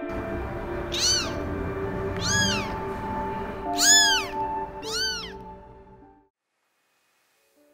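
A very young kitten meowing four times, each call a high cry rising then falling in pitch, over background music that stops about six seconds in.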